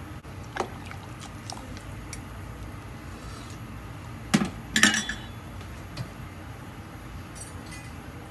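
Metal ladle clinking against a stainless steel stockpot while stirring broth: a light clink under a second in, a louder pair about halfway, and another shortly after. A steady low hum runs underneath.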